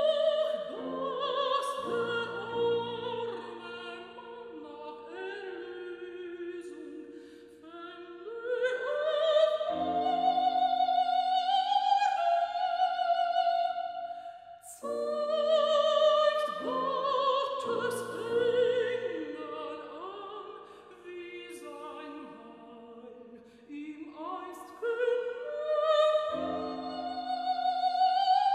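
Operatic soprano singing with piano accompaniment, in a full voice with wide vibrato, the phrases swelling to loud high notes several times and falling back softer in between.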